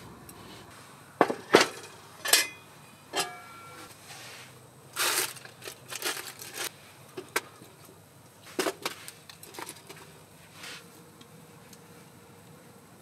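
Food-prep handling at a steel pot: scattered sharp clicks and knocks, two of them ringing briefly, mixed with rustling and crinkling, as a whole stuffed chicken is set into the foil-lined pot.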